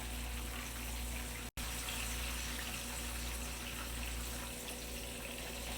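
Cornmeal-and-flour-coated tilapia fillets frying in hot oil in a pan, a steady sizzle that briefly drops out about one and a half seconds in.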